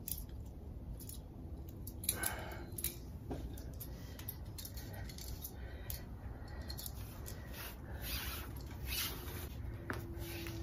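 Handling noise of sailing pulley blocks and braided rope for a 6:1 downhaul: scattered small clicks and rustles as the rope runs through the sheaves and the blocks are set down and the line pulled, with louder scrapes about two seconds in and around nine seconds.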